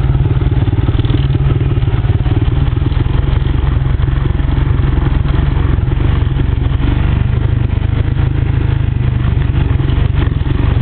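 ATV engine running steadily while the machine is under way, heard close from the rider's position, with no rise or fall in speed.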